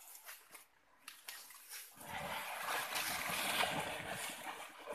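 Water splashing in a shallow stream as a Komodo dragon tears at a deer carcass lying in it: a few small clicks, then heavy churning splashes from about two seconds in.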